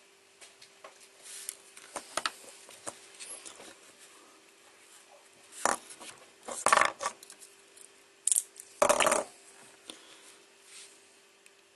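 Small metal tools and parts clinking and rattling on a workbench as they are handled: scattered light clicks, then a few louder clattering rattles in the second half.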